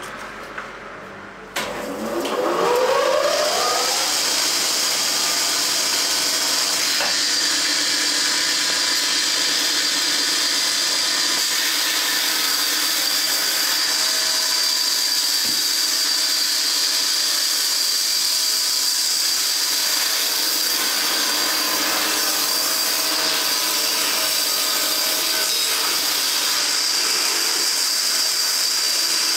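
Band saw cutting a block of boxwood. It comes on about two seconds in with a rising whine as the motor spins up, then runs steadily.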